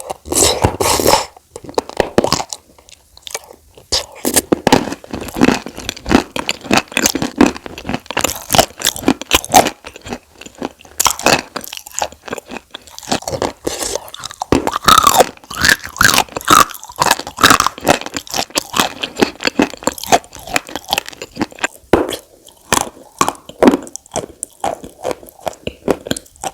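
Close-miked biting and chewing of chalk with clay paste: dense, irregular dry crunches and crumbling crackles, one after another.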